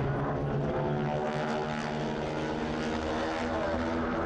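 Radial engines and propellers of North American AT-6 Texan aircraft running in flight, a steady pitched drone with several engine tones layered together.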